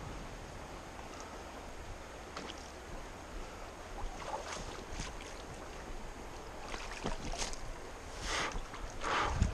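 Steady rush of river water, with a run of splashes from about halfway through that grow louder near the end as a large brown trout is brought into a landing net.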